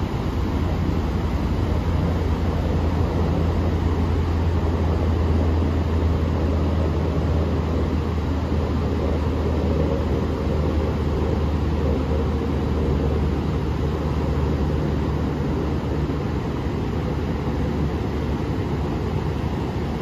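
Pacific surf breaking and washing up a sandy beach: a steady rushing noise with a deep low rumble.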